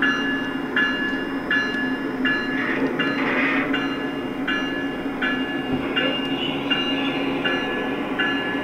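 Sound system of a Lionel O-gauge ES44 model diesel locomotive running: a steady diesel engine hum, with a locomotive bell ringing evenly about once every three quarters of a second.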